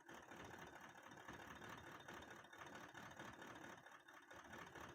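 Toyota 1VD 4.5-litre V8 diesel engine idling faintly, with the injector of cylinder one cut off by a scan-tool fuel-cut test; the engine keeps running evenly.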